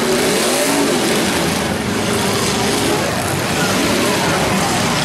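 Several demolition derby cars' engines running and revving together, a loud, dense mix of engine noise with shifting pitches.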